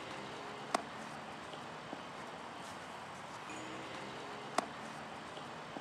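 Two sharp smacks of a baseball, about four seconds apart, over a steady background hiss.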